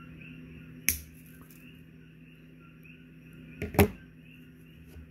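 Pliers' cutting jaws snipping thin nickel-titanium leader wire to trim the tag end of a loop knot. There is a sharp click about a second in and a louder double click just before four seconds, over a steady low hum.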